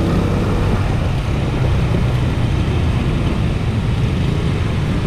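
Motorcycle engine running steadily while riding, with wind and road rumble, recorded through a foam wind case on a GoPro Hero 5.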